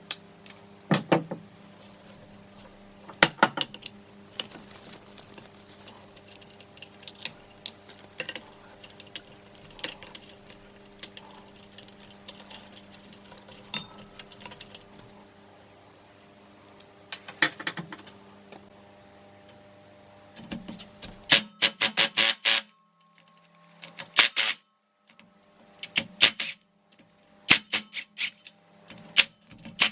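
Hand tools and metal engine parts clicking and knocking on a workbench during a motorcycle engine teardown, with a cluster of rapid clinks about two-thirds of the way through, over a steady background hum.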